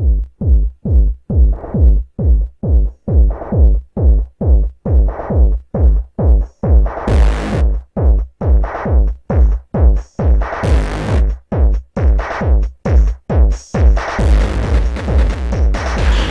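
Instrumental break of an electronic futurepop track: a steady pulse of drum-machine kick and falling synth-bass stabs, with rising noise swells about seven and ten seconds in. Near the end a fuller synth layer fills in between the beats.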